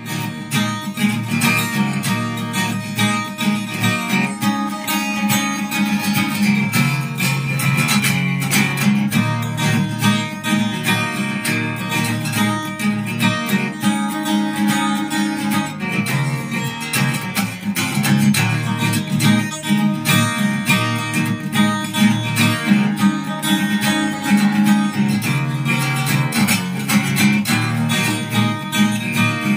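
Acoustic guitar strummed in a steady rhythm, chords ringing with no voice over them.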